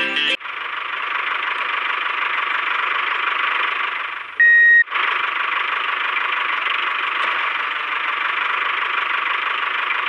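Toy tractor's electronic engine sound, a steady, tinny engine noise through a small speaker. It is broken once, about four and a half seconds in, by a short, loud horn beep.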